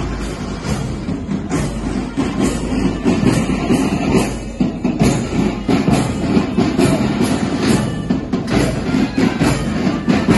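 A school marching band playing, with a steady drumbeat.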